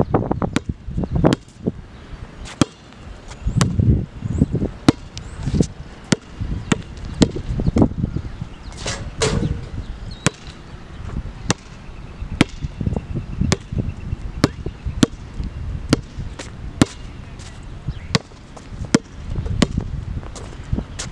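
Background music beat: a sharp clap-like click about twice a second, evenly spaced, with duller low thuds now and then.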